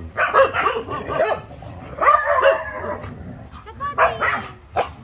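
Dogs barking in several short bursts, with some talk mixed in.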